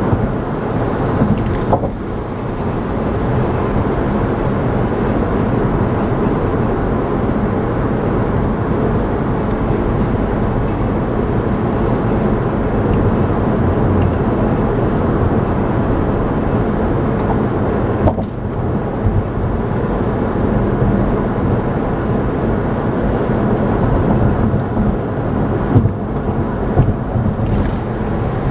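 Steady road noise of a car at highway speed heard from inside the cabin: tyres and engine as a constant low rush, dipping briefly twice.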